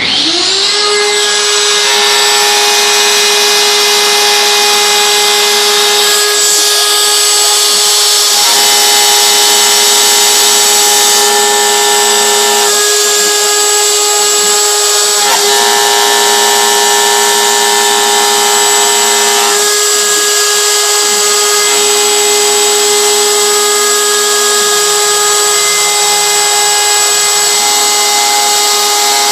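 CNC router spindle spinning up with a quick rising whine, then running at a steady high whine as its bit carves a groove into a wooden board, the tone shifting slightly every few seconds as the cut changes direction.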